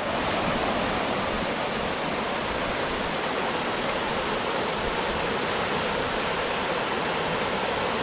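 Shallow river rushing over rock rapids: a steady, even roar of white water.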